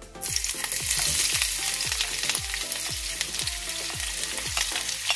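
Sliced red onions dropped into hot oil in a frying pan, setting off a loud sizzle that starts suddenly just after the start and keeps on steadily as the onions fry.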